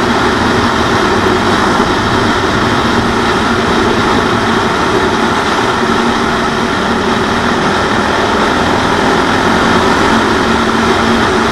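CCM 644 R30 supermoto's single-cylinder Suzuki 650 engine running steadily at cruising speed, mixed with rushing wind and road noise.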